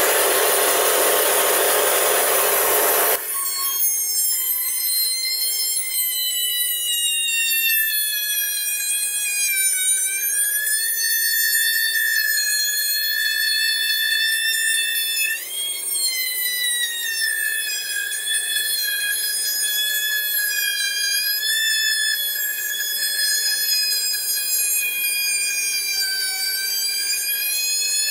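Bandsaw running and cutting through a wood block: a steady high whine that sags and wavers in pitch as the cut loads the saw. A loud hiss fills the first three seconds and cuts off suddenly.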